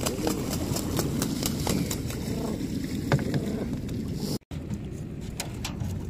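Water splashing as a cormorant climbs out toward a wooden fishing boat, over a steady low rumble with scattered knocks and clicks. The sound drops out for a moment about four and a half seconds in.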